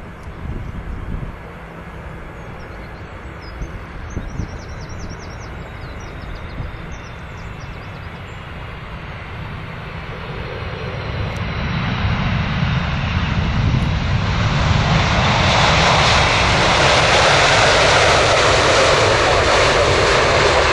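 Jet airliner engines approaching, a noisy rumble that grows steadily louder from about ten seconds in until it fills the sound near the end.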